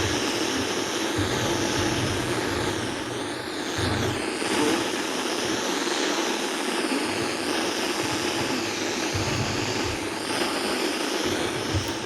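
Steady rushing noise, with irregular low rumbles underneath and a hiss that slowly sweeps up and down in pitch.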